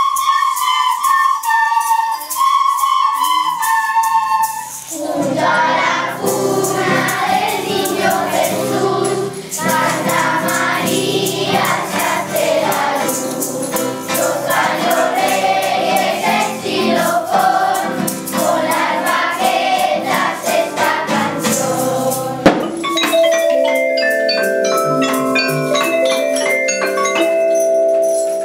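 Children's school ensemble: recorders piping a tune for the first few seconds, then a children's choir singing with hand percussion ticking along. About 22 seconds in comes a sharp knock, and after it metallophone notes ring out step by step, each note sustaining.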